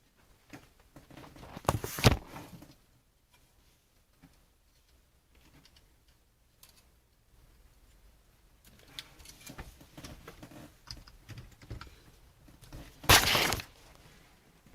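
Irregular handling noises: scattered clicks, rattles and rustling, with two louder short bursts about two seconds in and near the end.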